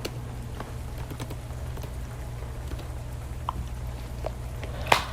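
Slow, scattered keyboard keystrokes: a handful of separate clicks over a steady low hum, with the sharpest click near the end.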